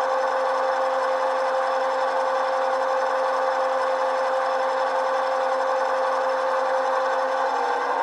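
Model-railroad sound decoder (Loksound v5) playing a GP9 diesel prime mover through small sugar-cube speakers, running steadily at one throttle notch during a notch-by-notch run-up. Near the end its pitch begins to shift as it moves up toward the next notch.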